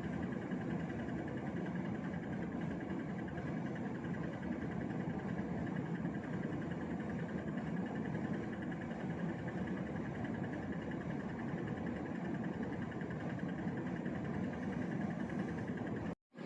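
Hitachi RA-36NV window air conditioner running with a steady hum and whir, the abnormal noise and vibration the owner complains of. The sound drops out for an instant near the end.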